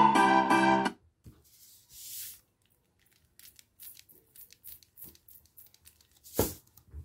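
Piano music plays for about the first second, then cuts off. Salt grains are then poured onto the upturned cone of a small speaker driver, making a light patter of many tiny ticks, with one louder thump near the end.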